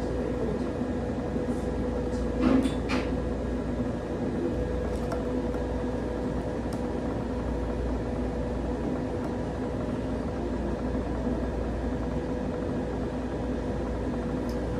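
Steady hum and rush of air from laser tattoo-removal equipment, with its cold-air chiller blowing through a corrugated hose at the skin. A few sharp clicks come about two and a half seconds in.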